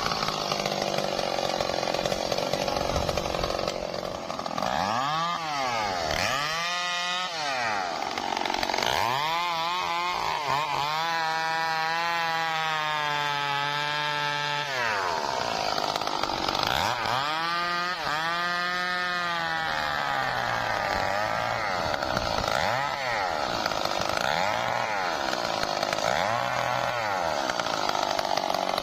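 Stihl MS 382 two-stroke chainsaw working through trembesi (rain tree) wood, its engine revving up and down again and again. It is held at high revs for about four seconds in the middle.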